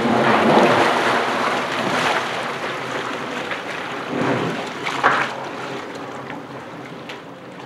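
Yamaha FX 160 jet ski engine running, its jet pump churning the pool water, the sound slowly dying away. There is one short louder rush of water about five seconds in.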